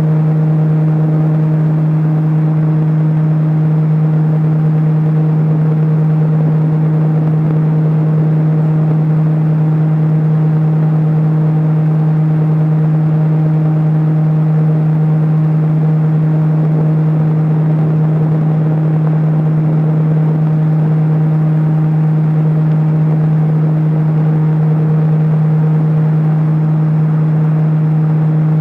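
A large electric fan running steadily: a loud, even motor hum with a rush of air behind it.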